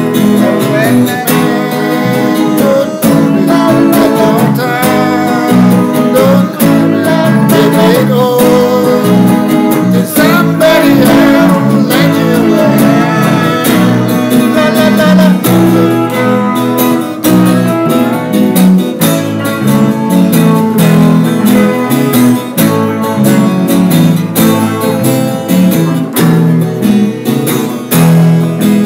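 Small band playing live: strummed acoustic guitar, electric guitar and violin-shaped bass guitar, with sung vocals over them.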